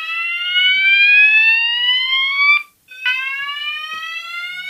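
Fire alarm sounder sounding a slow whoop tone: a loud upward-sweeping wail that cuts off about two and a half seconds in, then a short silence and a new rising sweep. The alarm was set off by a test key in a manual call point.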